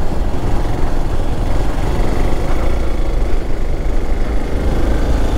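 Hero XPulse 200 4V motorcycle's single-cylinder engine running steadily while riding up a hill road.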